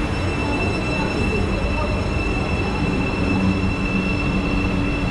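Marmaray electric commuter train standing at the platform, giving a steady high-pitched whine of several tones over a low rumble.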